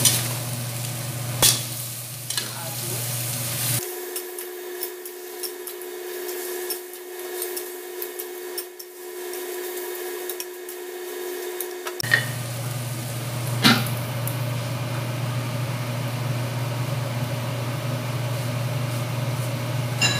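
Duck pieces and ginger sizzling in a stainless steel wok while a metal spatula stirs them, knocking sharply against the pan a few times, over a steady low hum.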